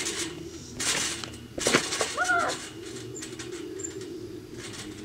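Trampoline mat and springs rustling and thudding under a person's weight, two short bursts about a second apart, followed by a brief rising-and-falling squeak.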